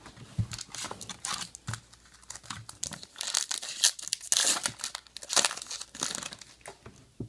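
Foil wrapper of a trading-card pack crinkling and tearing as it is pulled open, a dense run of crackles that is loudest in the middle.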